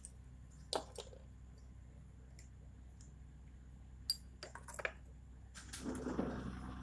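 Glass test tubes clinking against each other and the plastic rack as they are handled: a couple of sharp clinks about a second in and a cluster of clinks around four to five seconds in, then a short soft rustling noise near the end.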